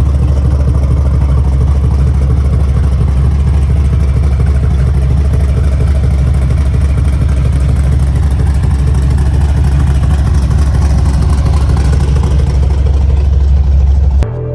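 Big-block V8 of a 1971 Chevy C10, a 496 cubic inch, running steadily with a deep low rumble, cut off abruptly just before the end.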